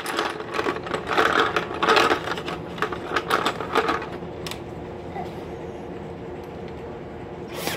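Drill running steadily while sharpening a pencil crayon, with rough, uneven grinding through the first half, then a steadier stretch and one sharp click near the end.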